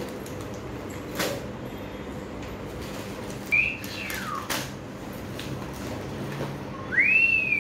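Plastic grocery packets rustling and tapping as they are taken out of a shopping bag, with a couple of sharp clicks. A high whistle-like sliding call cuts in twice: a short falling one about halfway through, and a louder one near the end that rises and then falls.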